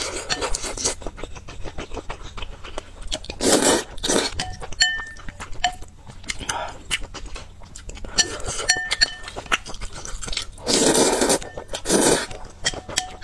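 Close-miked chewing of spicy instant noodles, with many wet mouth clicks and smacks. Several loud slurps of noodles come in short swells, the biggest about eleven and twelve seconds in.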